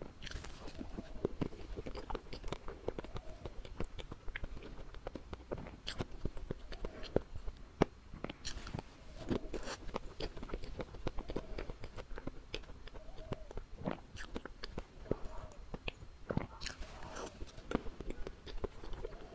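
Close-up mouth sounds of someone eating a soft cream cake: chewing and wet lip smacks with irregular sharp clicks, going on throughout.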